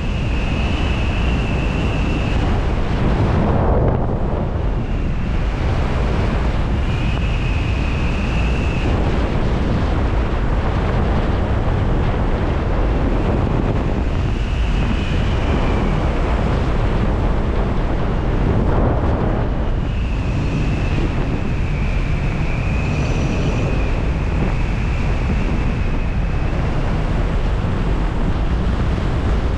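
Strong wind buffeting the microphone: a steady, loud rumble and rush. A faint high tone comes and goes above it several times, a second or two each time.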